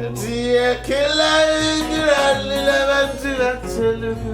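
A man singing long, drawn-out notes that slide between pitches, with acoustic guitar accompaniment.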